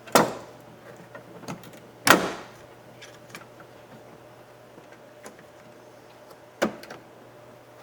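Screwdriver and door-handle parts clicking and knocking as a rod retaining clip is pushed and locked into place on an interior door handle: three sharp knocks, the loudest about two seconds in, with a few lighter ticks between.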